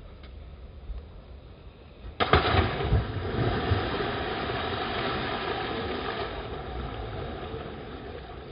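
A person jumping into a swimming pool: a sudden loud splash about two seconds in, then churning, sloshing water that slowly dies down as he swims.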